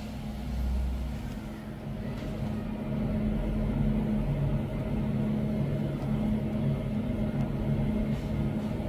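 Steady low machine hum, a motor running with a slightly wavering drone that gets a little louder about two seconds in.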